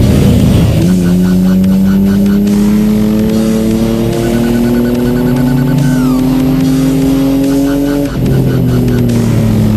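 Race car engine heard from inside the cabin, pulling hard with its pitch rising slowly for several seconds, then dropping abruptly near the end and falling away.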